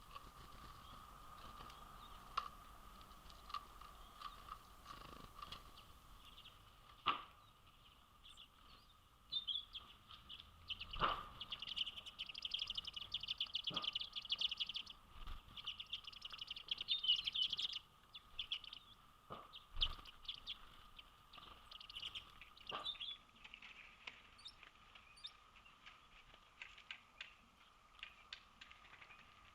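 Small birds chirping and calling, thickest from about a third of the way in to just past halfway and sparser after that. A few sharp knocks are scattered through it, over a faint steady tone.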